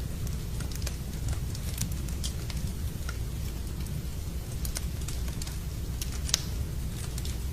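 Fire burning in a fireplace, crackling with irregular sharp pops over a steady low rumble. One louder pop comes about six seconds in.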